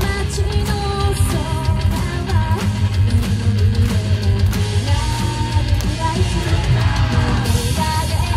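Live idol-group rock song: a woman singing into a microphone over loud band backing with electric guitar and a steady drum beat.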